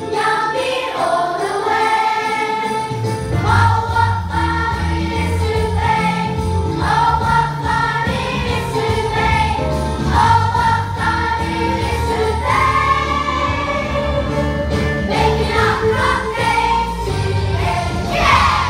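Children's choir singing a Christmas song together over music with a bass line and jingling bells; the bass comes in about three seconds in, and the song reaches its final note near the end.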